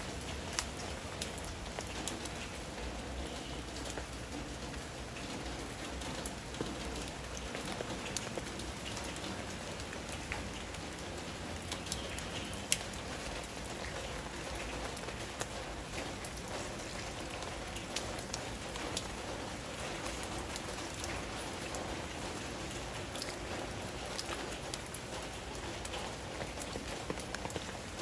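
Steady rain, with many scattered sharp drop clicks.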